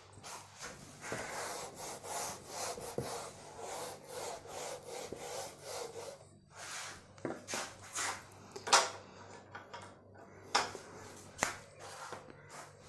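A whiteboard being wiped with a hand-held eraser: quick rubbing strokes, about two a second, through the first half, followed by a few sharp taps.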